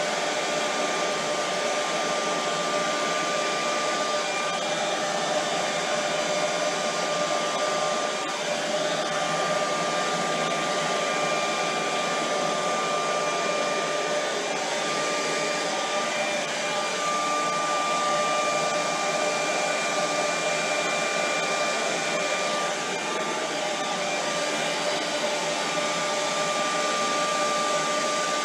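Handheld hair dryer running steadily: an even rush of air with a steady motor whine over it.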